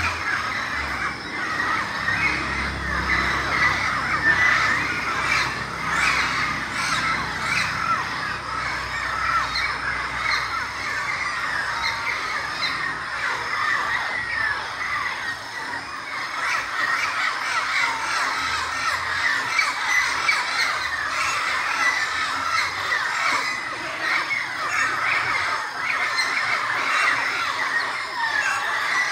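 Dense chorus of many birds calling at once: overlapping squawks, chirps and short squealing notes, unbroken and steady in loudness.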